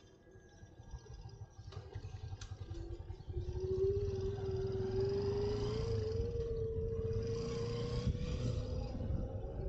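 A motor vehicle engine running and growing louder, with a low rumble and a steady hum that rises slightly in pitch from about three seconds in.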